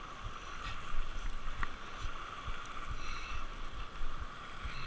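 Lake water lapping against a rocky shoreline, with wind buffeting the microphone in low, uneven thumps.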